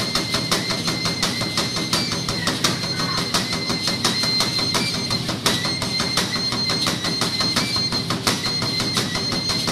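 Fast, even percussion accompanying a dance performance, several beats a second without a break, with a steady high tone running underneath.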